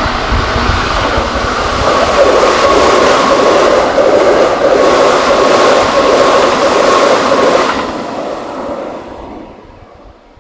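Keikyu Main Line train passing over a level crossing at high speed, a loud steady rush of wheels on rail that dies away over the last two seconds.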